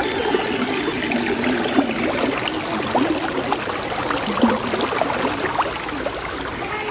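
Stream water flowing and gurgling steadily, with many small splashes and bubbles.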